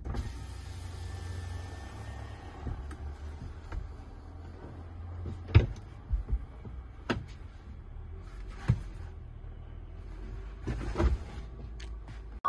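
Low steady rumble inside a car cabin, with a handful of sharp clicks and knocks from someone shifting on the back seat and reaching for the door.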